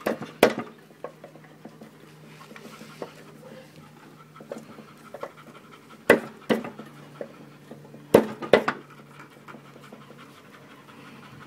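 Sharp metal clicks and knocks as the push mower's blade adapter is handled and seated on the crankshaft: one near the start, then two close pairs later on, over a steady low hum and panting breath.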